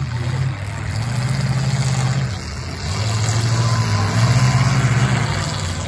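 Demolition derby cars' engines running and revving hard, the pitch rising and falling, loudest about four seconds in.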